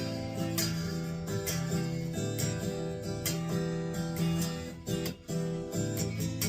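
Electric guitar played clean through an amp modeler set to a '65 Deluxe model, strumming and picking chords on a two-pickup combination whose pickups carry neodymium disc magnets in place of their ceramic magnets. The playing pauses briefly twice around five seconds in.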